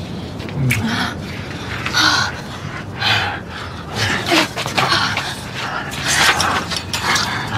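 A couple breathing hard and gasping while kissing, with a breathy gasp every second or so and a few short low moans.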